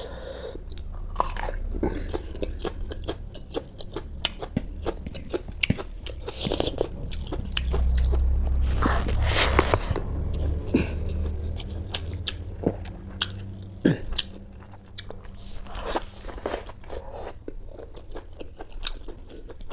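A person biting and chewing: crunching into a raw king chilli and chewing mouthfuls of rice and mutton, with many sharp mouth clicks throughout.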